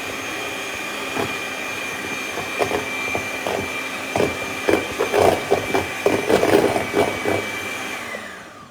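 Electric mixer whipping cream with powdered sugar: a steady motor whine with irregular knocks, switched off near the end as the whine falls away.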